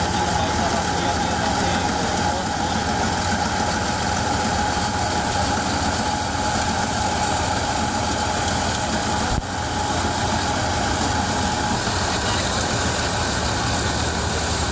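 Mini thresher run by a Massey Ferguson 135 tractor, working steadily: the tractor's diesel engine and the spinning thresher together make a continuous, even machine noise, briefly dipping about nine seconds in.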